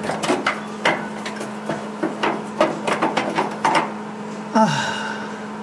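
Metal clicking and knocking as a rusty, seized door screw is turned out with a threaded rod welded to its head, about two or three irregular clicks a second for the first four seconds.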